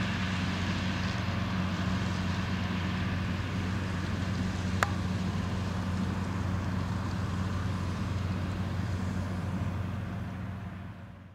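John Deere 9630T crawler tractor's diesel engine running steadily under load while pulling a heavy cultivator through stubble: a low, even drone. There is a single sharp click about five seconds in, and the sound fades out near the end.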